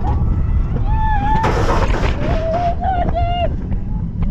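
Wind rushing over the microphone of a moving roller coaster train, with riders letting out short high-pitched screams and yells about a second in and again between two and three and a half seconds in.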